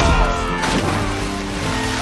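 Background music with fight sound effects: a crashing hit at the start and another impact about two-thirds of a second in.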